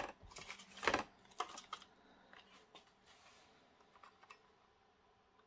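Clear plastic packaging clattering and clicking as a model railway coach is taken out of its box and insert and handled: a burst of sharp clicks and rattles in the first second or two, then fainter scattered taps dying away after about four seconds.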